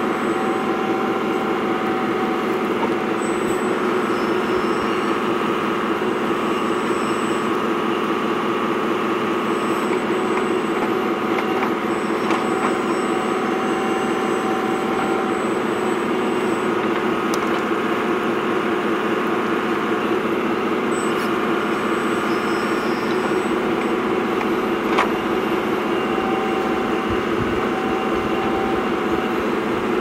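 Radio-controlled scale Cat 374F excavator running steadily as it digs and swings, an even mechanical whine. One sharp click about 25 seconds in.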